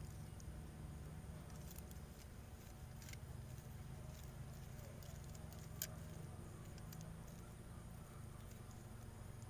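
Metal garden shears handled against a hibiscus branch: a few faint clicks, one sharper click about six seconds in, over a low steady hum.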